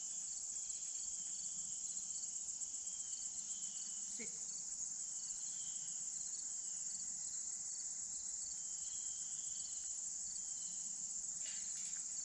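Outdoor insect chorus: a steady high-pitched shrill with faint ticking about twice a second.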